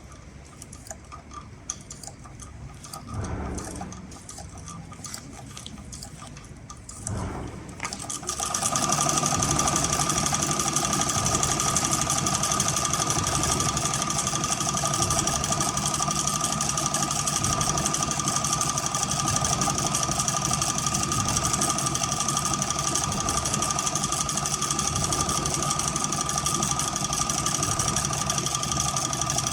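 CowBoy CB6900 cylinder-bed heavy-duty sewing machine stitching leather: a few seconds of slower, lighter ticking stitches, then about eight seconds in it runs up to a loud, steady fast stitching run with a constant whine.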